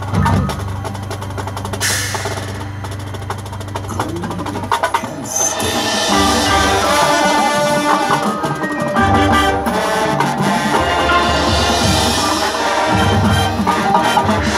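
High school marching band playing its field show: a low held drone with light percussion clicks, then the full band comes in with loud held chords about five to six seconds in, over drums and percussion.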